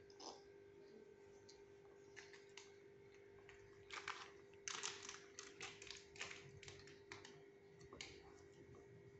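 Plastic snack wrapper crinkling in a toddler's hand: a run of faint, irregular crackles, thickest in the middle.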